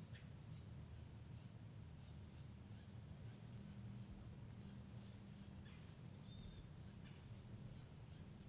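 Quiet woods: small birds giving thin, high chirps at irregular intervals, faint over a steady low hum.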